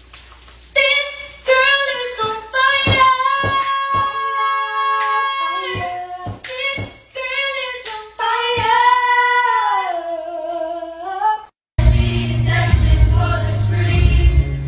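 A high voice singing a melody without accompaniment, broken by sharp hand claps between phrases. About three-quarters of the way through it cuts to a choir singing over instrumental backing.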